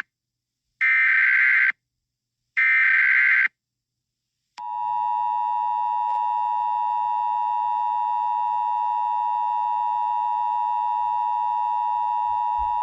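Emergency Alert System tones: two short bursts of SAME header data, each about a second long, follow the end of a first burst. About a second of silence later, the steady two-tone EAS attention signal begins. It holds for about eight seconds and cuts off, marking the start of an emergency alert broadcast.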